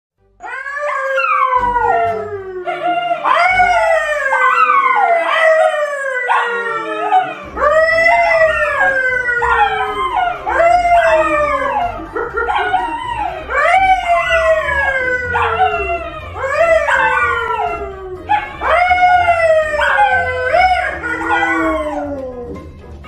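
Two dogs, a pale Labrador-type dog and a brown poodle, howling together with a man howling along. It is a loud chorus of overlapping long wails, each sliding down in pitch, repeated every second or two.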